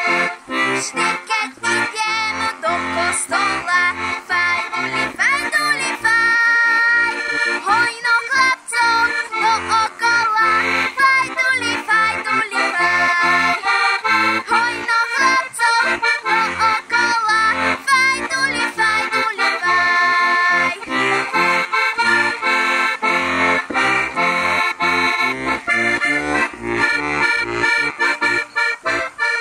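Diatonic button accordion (heligónka) playing a Slovak folk tune, the melody over a steady, regular accompaniment of bass notes and chords.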